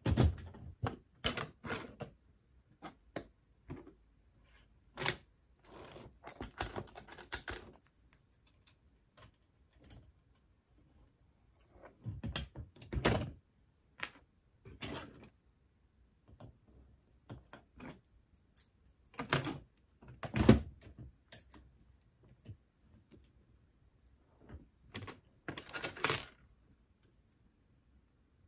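Plastic LEGO bricks clicking and clattering as pieces are handled and pressed together. The clicks come in irregular clusters, with the loudest one about two-thirds of the way through.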